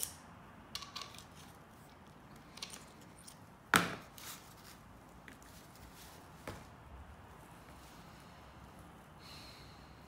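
Scattered small clicks and taps of a replacement switch and its wires being worked by hand into the open plastic handle housing of an angle grinder, with one sharper knock about four seconds in.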